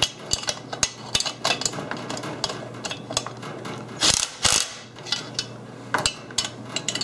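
Cordless drill with a socket on a long extension working a nut on a caster bracket: scattered metallic clicks and rattles, with one louder, longer burst of noise about four seconds in.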